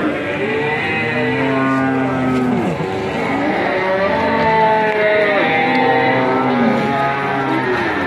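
Cattle mooing: a run of long, drawn-out moos, one after another and partly overlapping at different pitches from more than one animal.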